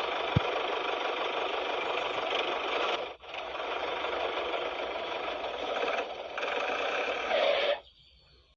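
Small electric motor whirring steadily, stopping briefly about three seconds in and cutting off near the end.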